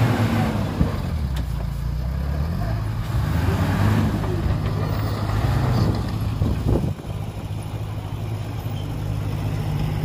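Heavy diesel engine of earthmoving equipment running, its note rising and falling in the first few seconds. The level drops briefly about seven seconds in.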